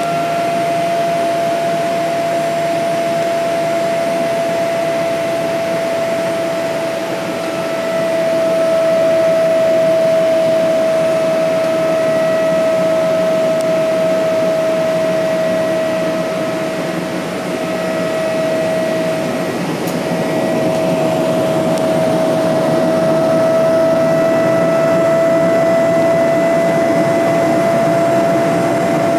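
Boeing 777-200ER cabin noise in flight, heard from inside the cabin: a steady rush of engine and air noise with a clear, steady whine from the engines running through it.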